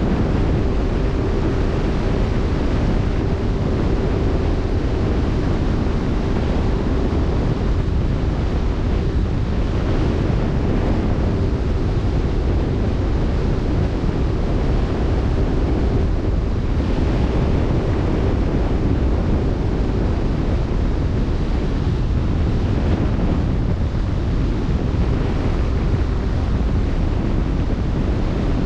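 Wind buffeting the microphone over the steady rush of open-sea waves. A faint hum comes and goes behind it.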